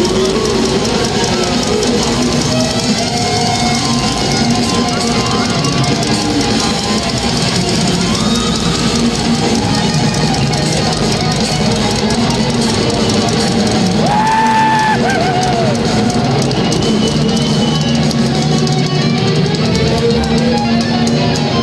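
Thrash metal band playing live: electric guitars over a drum kit, loud and continuous, with a sliding high note about two-thirds of the way through.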